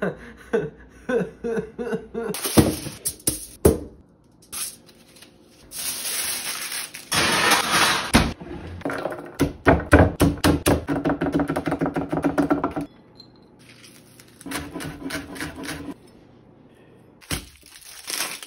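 Kitchen prep sounds in quick succession: knife strikes and garlic cloves smashed under the flat of a knife blade on a wooden cutting board, then aluminium foil crinkling as it is wrapped around a potato near the end.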